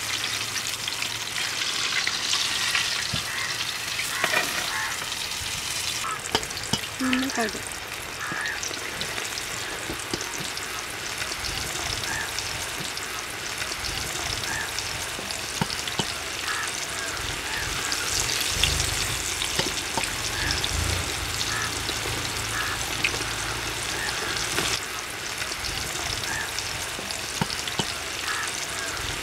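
Flour-coated chicken drumsticks deep-frying in hot oil in an iron kadai: a steady sizzling hiss with scattered crackles.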